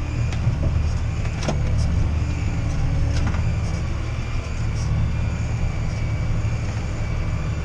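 John Deere 6R tractor engine running steadily under load while pulling a plough through heavy soil, with a couple of faint knocks.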